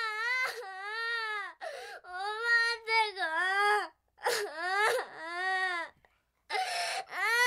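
A young girl wailing and sobbing, crying out for her mother in long, high, wavering cries broken by sharp breaths, with a brief pause about six seconds in.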